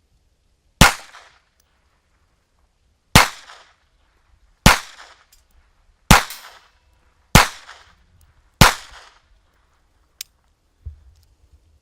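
Six shots from a Baby Browning .25 ACP pocket pistol, fired one at a time about a second or two apart, each a sharp crack with a short ringing tail. The string runs without a malfunction.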